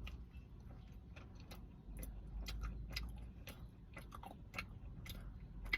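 A person chewing a cookie close to the microphone, with many small irregular mouth clicks and smacks. A low rumble underneath grows louder about two seconds in.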